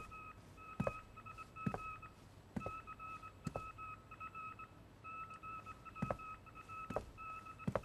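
Morse code on a radio receiver: a steady high beep keyed on and off in short and long pulses, an incoming telegraph message. Sharp knocks fall beneath it at a steady pace of a little more than one a second.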